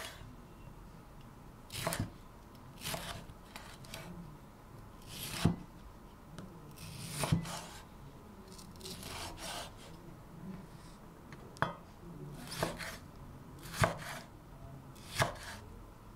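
Chef's knife slicing through a tomato and tapping down on a wooden cutting board, about ten separate cuts, one every second or two.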